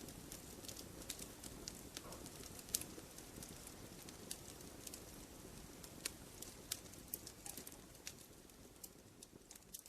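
Campfire burning: a low steady rumble of flame with irregular sharp crackles and pops from the burning wood, one louder pop a little under three seconds in. The fire sound slowly fades out near the end.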